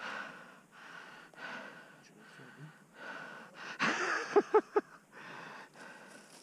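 A person breathing hard and rhythmically, in and out about every half second. About four seconds in comes a louder sharp gasp that ends in three quick voiced breaths.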